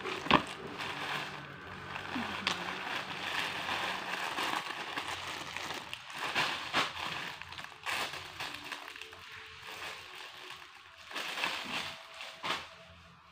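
Plastic packaging and clothes being handled: irregular crinkling and rustling, with a sharp click about a second in.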